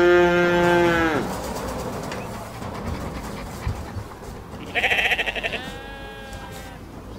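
Two long, pitched calls. The first is held steady for about a second. The second comes about five seconds in, starts with a fast quaver and then holds steady.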